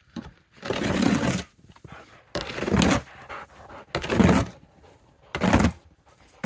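A person blowing on live coals in a fire pit to get a fire going. There are four long breaths of rushing air, about one and a half seconds apart.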